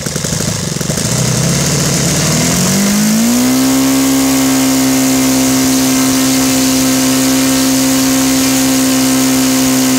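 Saito FA-180 twin-cylinder four-stroke model aircraft engine, converted to gasoline with spark ignition, swinging an APC 18x6 wide propeller: throttled up from idle, its pitch rising over about two seconds, then held steady at full throttle around 7,900 RPM.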